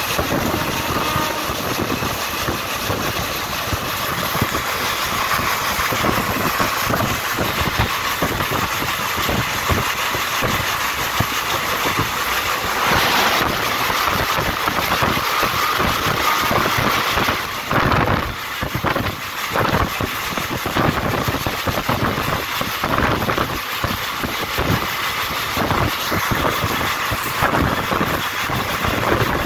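Indian passenger train coaches running at speed, heard from the open door: a steady rush with wheels clattering over rail joints. About 13 s in, another passenger train passes close alongside with a swelling whoosh of air and choppy gusts as its coaches go by.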